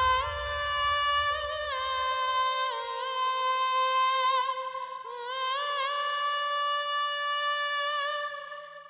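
A woman singing a high, long-held melody with wavering, bending ornaments, almost without accompaniment. A low rumble underneath stops about two and a half seconds in.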